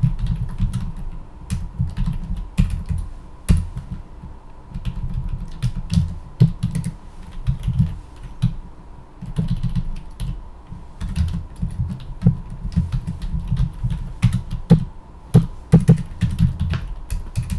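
Typing on a computer keyboard: keystrokes in irregular runs with short pauses between them.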